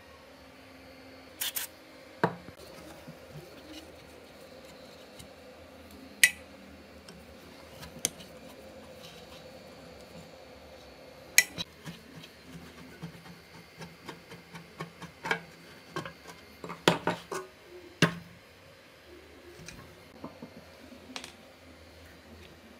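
A hand tool and a metal fan blower housing knocking and scraping against each other on a workbench. Single sharp clinks and knocks come every few seconds, then a quicker run of taps and scrapes for several seconds past the middle.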